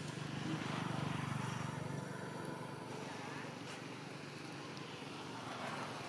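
A motor vehicle's engine passing at a distance, its hum loudest about a second in and then fading.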